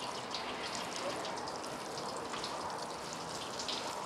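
Water sprayed onto a potted succulent in a steady shower, pattering on the plump leaves and soaking the potting soil.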